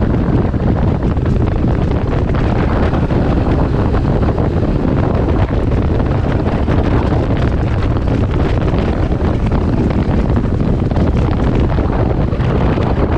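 Strong wind buffeting the microphone: a loud, steady, low rushing noise with no let-up.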